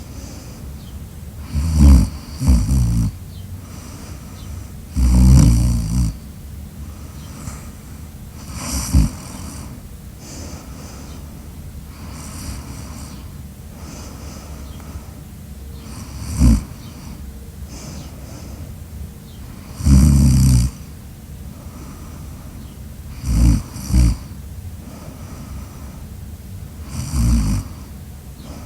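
Loud snoring in irregular bursts, about nine in all, a few of them in quick pairs, with gaps of about three to seven seconds between them. Each snore has a low, rattling buzz.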